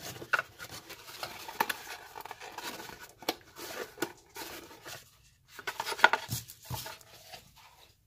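Small objects and packaging being handled: irregular clicks and knocks mixed with rustling and crinkling, pausing briefly about five seconds in.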